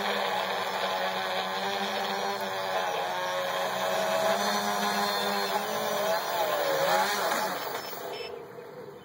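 FPV quadcopter's motors and propellers whining in flight, the pitch wavering and dipping as the throttle changes. About eight seconds in the sound falls away as the quad lands and the motors spool down.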